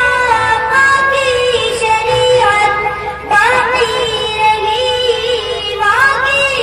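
A boy singing a naat solo into a microphone: one high voice in a long, ornamented melody that bends and wavers between notes, with a short pause for breath about three seconds in.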